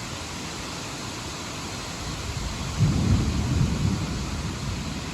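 A low rumble of thunder breaks in suddenly about three seconds in and keeps rolling, over a steady hiss of storm wind.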